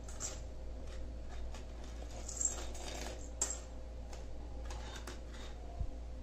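Silver anklet chains and bangles being set down on a stone countertop: a few faint, light metallic clinks and chain rattles.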